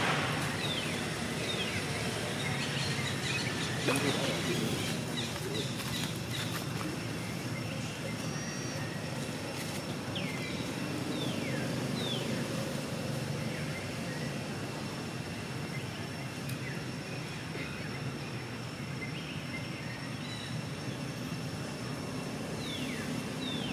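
Outdoor ambience: a steady low background rumble with scattered short, high chirps that slide downward in pitch.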